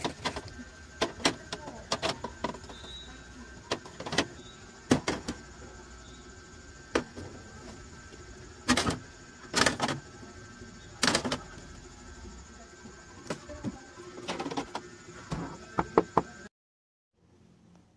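Bottles and eggs being handled on the plastic shelves of an open refrigerator door: a run of irregular clicks and knocks, with a couple of sharper knocks about sixteen seconds in as the fridge door is shut, after which the sound cuts off.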